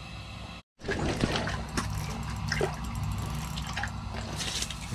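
Water splashing and dripping with scattered sharp clicks, over a steady low hum. It starts suddenly after a brief dead-silent cut.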